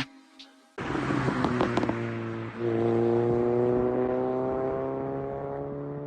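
Car engine running under acceleration, cutting in suddenly, dipping briefly about two and a half seconds in, then climbing slowly in pitch.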